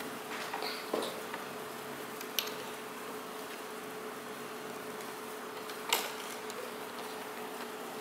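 A few light clicks of a plastic hook and rubber bands against the pegs of a plastic loom band loom, the loudest about six seconds in, over a steady faint hum.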